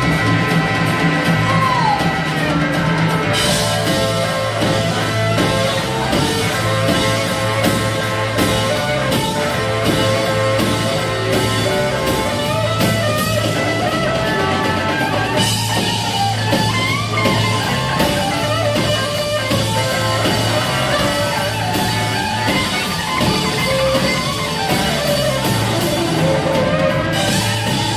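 Blues-rock band playing an instrumental break of a boogie: electric guitar over bass and a drum kit, with cymbals coming in a few seconds in.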